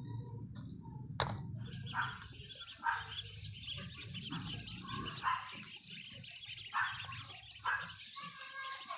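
A flock of ducklings peeping and chattering at the feed tray and waterers, with louder calls standing out about once a second. A sharp click comes about a second in.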